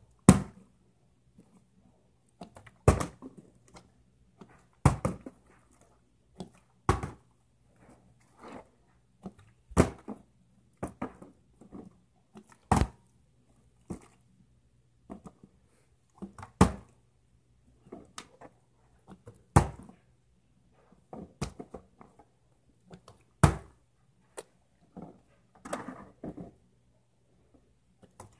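A partly filled plastic water bottle being flipped and landing on a ceramic tile floor again and again: about a dozen sharp thunks a few seconds apart, with smaller knocks and rattles between them.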